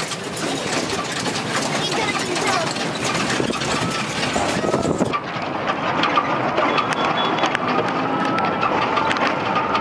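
A vehicle driving along a rough, unpaved road, heard from inside: steady engine and road noise with a continual rattling of the body.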